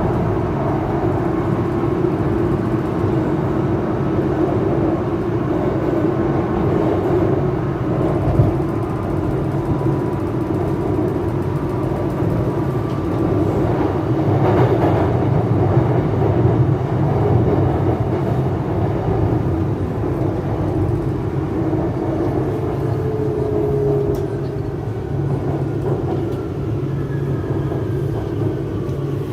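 Shanghai Metro Line 9 type 09A02 electric train running at speed: a steady rumble of wheels on rail. Faint whining tones from the drive are heard over it, and near the end they slide in pitch.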